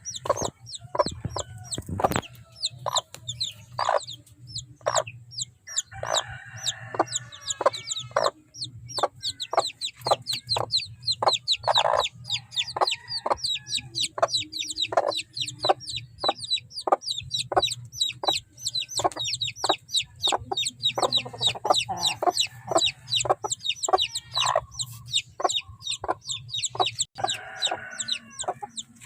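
A group of young gamefowl chicks, about 45 days old, peeping almost constantly with quick, high, falling chirps, mixed with short clucks.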